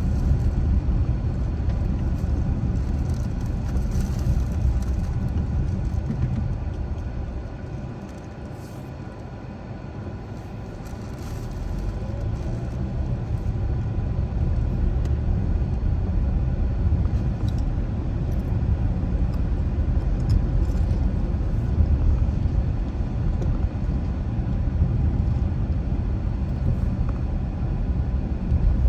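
Steady low road and engine rumble of a car driving. It drops away about eight seconds in, as the car slows, and builds back up a few seconds later as it picks up speed again.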